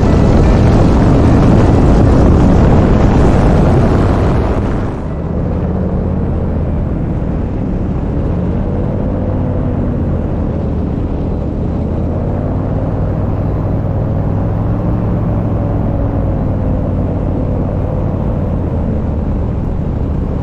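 Tandem paramotor trike's engine and propeller running steadily in flight. For the first few seconds wind buffets the microphone hard; about five seconds in the sound changes to a steadier, more muffled engine drone with a slowly wavering pitch.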